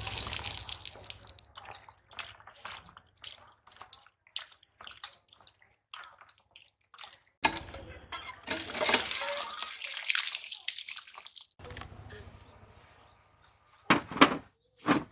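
Water from a hand pump pouring and splashing over hands and pieces of fish being rinsed, becoming a steadier gush for a few seconds in the middle. Near the end come two sharp knocks, the loudest sounds.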